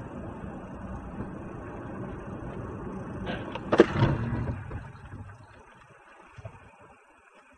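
Car driving with steady road and engine noise, then a sharp bang just under four seconds in as it strikes the opened door of a parked car. The noise dies away afterwards as the car slows.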